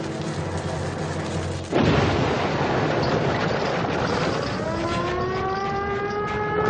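A lit fuse hissing, then a sudden explosion as the sabotage charges go off, its blast noise carrying on. Near the end an alarm siren winds up, its pitch rising and then levelling.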